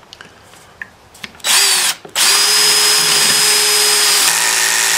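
DeWalt 20V cordless drill driving a half-inch lag bolt through a 19 mm socket into a 4x6 with no pilot hole. A short burst, a brief pause, then a steady motor whine under load for about three seconds that cuts off sharply, the bolt stalling partway in.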